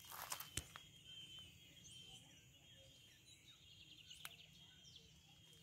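Near silence: faint outdoor background with a steady thin high tone, and a few soft clicks in the first half second and once about four seconds in.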